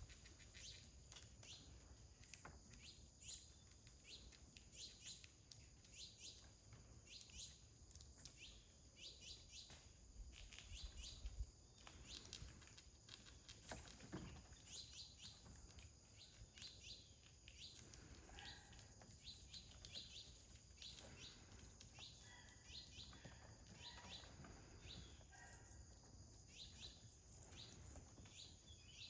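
Small songbirds chirping faintly, many short high chirps repeating throughout, with a few lower, longer notes in the second half.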